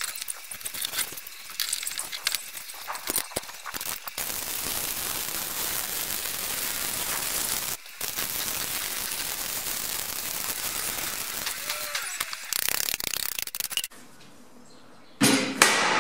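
Stick (shielded metal arc) welding: the electrode's arc crackling and hissing in runs with short breaks, stopping about 14 seconds in. A brief, louder noise follows near the end.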